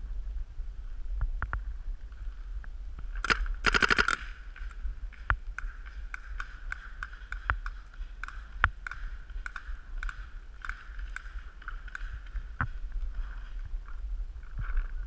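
Paintball markers firing: a rapid string of shots about three seconds in, lasting under a second, then scattered single shots through the rest, over a low wind rumble on the microphone.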